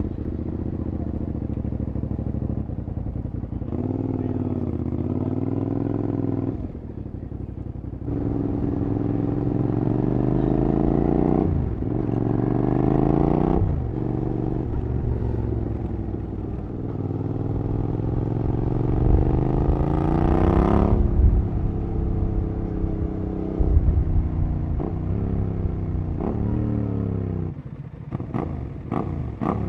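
Suzuki SV650SA's 90-degree V-twin with an aftermarket Cobra SC3 exhaust, pulling hard several times: the pitch climbs, then drops sharply at each gear change. A series of quick throttle blips comes near the end, over a steady low rumble of wind and road.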